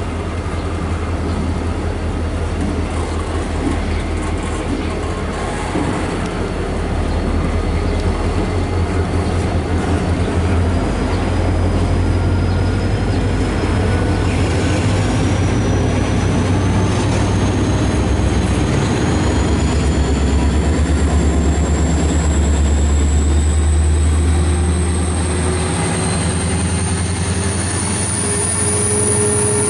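Double-stack intermodal well cars rolling past with steady wheel and rail noise, under the deep, steady drone of the diesel engines of a CSX yard job led by an EMD SD40-3 locomotive, which grows louder as it comes close. A thin high whine rises slowly in pitch throughout.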